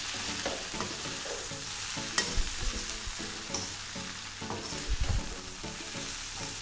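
Masala-coated potato chunks sizzling in oil in a stainless steel kadai while a perforated steel ladle stirs and turns them. The ladle scrapes and knocks against the pan, with a sharp clink about two seconds in and a few dull thuds.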